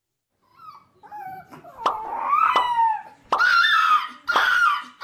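A puppy whining: a run of high-pitched cries that slide in pitch, starting about half a second in, with two sharp clicks around the middle.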